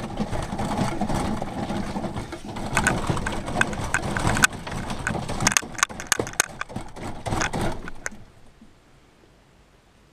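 Wire-grid cube storage shelving loaded with a full plastic water container, shaken hard by hand: continuous rattling and clanking of the wire panels and their connectors, with sharp knocks as the load shifts. The shaking stops about eight seconds in.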